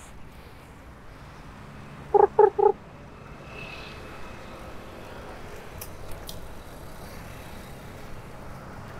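A vehicle horn beeping three times in quick succession about two seconds in, over steady street traffic noise.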